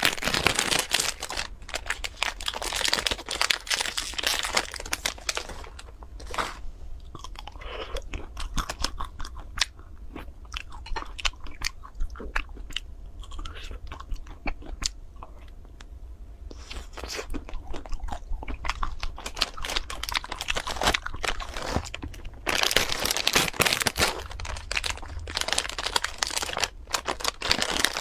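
Close-up crunching and chewing of a chocolate-coated ice cream bar, the crisp chocolate shell crackling with each bite. The crunching is densest at the start and again over the last few seconds, with softer chewing in between.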